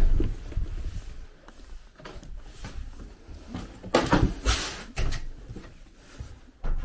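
Irregular knocks and rustling in a small, reverberant room, with a louder scraping rush about four seconds in and a short knock near the end.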